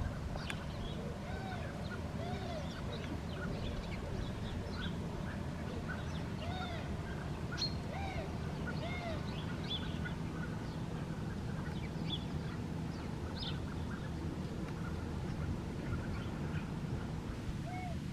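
Many birds calling at once: a stream of short, overlapping calls that rise and fall, over a steady low rumble.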